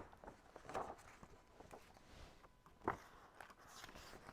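Faint handling noise: soft rustles and a few light knocks, the loudest knock about three seconds in.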